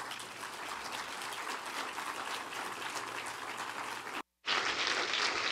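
Congregation applauding steadily. The sound breaks off completely for a split second a little past four seconds in, then the clapping resumes louder.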